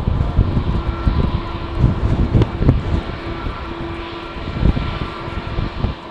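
Strong wind buffeting the microphone in gusts, over the steady whine of jet airliner engines.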